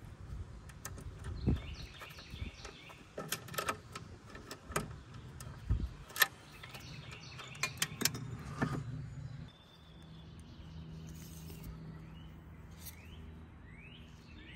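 Small birds chirping repeatedly, with scattered sharp clicks and knocks as the grill's metal band and hinge hardware are handled. About two-thirds of the way in, the knocking stops and a steady low hum sets in.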